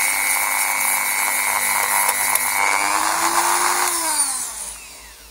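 Dremel rotary tool with a small sanding attachment running at high speed as it sands down the plastic of a car air-vent grille, with a steady high whine. About three seconds in it is switched off, and its pitch falls as it winds down to a stop.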